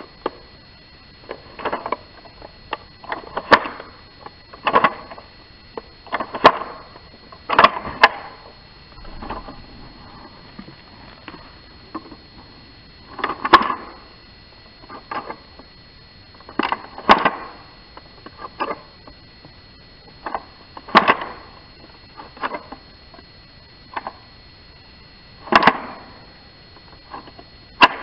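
LEGO blowback pistol's plastic slide and mechanism clacking as it is worked and fired again and again: sharp, loud clacks about every one to two seconds, irregularly spaced.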